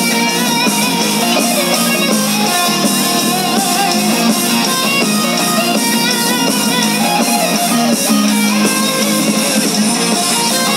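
Live rock band playing loudly, with an electric guitar out front whose notes waver and glide in pitch over the band.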